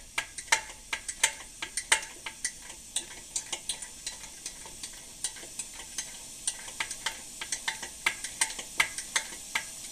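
Svea No. 14 kerosene pressure stove being pumped up to full flame: irregular crackling clicks, several a second, over a faint steady hiss from the burner.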